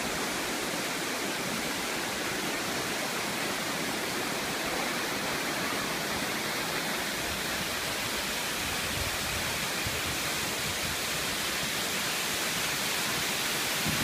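A waterfall rushing steadily, water spilling over rock into a plunge pool, as an even, unbroken hiss.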